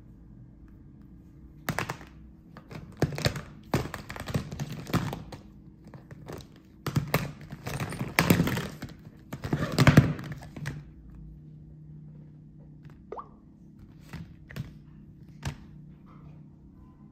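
Smartphones and plastic phone cases clattering and knocking against each other as a hand rummages through a pile of them on a table: a run of knocks and scrapes lasting several seconds, then a few faint clicks.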